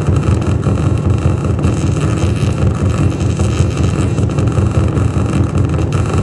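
Loud, dense rumbling noise with a steady low drone and faint held tones above it, sounding through loudspeakers as part of an electronic sound performance.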